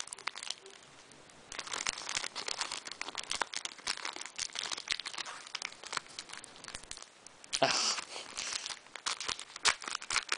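Foil Pokémon TCG booster pack wrapper crinkling and tearing as it is opened by hand: a quiet second and a half, then a rapid run of crackles, with a louder rustle about three quarters of the way through.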